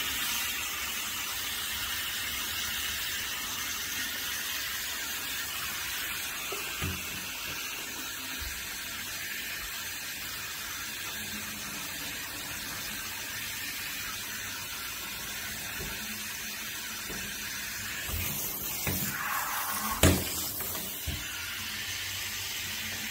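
Handheld shower running steadily into a bathtub while a puppy is bathed, an even hiss of water, with a few light knocks and one louder knock about twenty seconds in.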